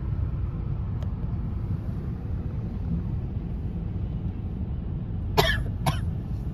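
Low, steady rumble of a car moving slowly in city traffic, heard from inside the cabin, with a person coughing twice in quick succession about five and a half seconds in.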